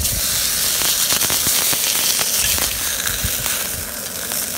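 Marbled Hiba-beef sirloin steak sizzling in a hot iron frying pan, starting loud the moment it is laid in, with dense crackling and popping from the spitting fat.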